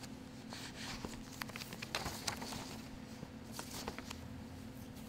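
Scattered small taps, clicks and rustling, thickest from about half a second to three seconds in, over a steady low hum. This is a speaker arriving at a lectern and settling at its microphone.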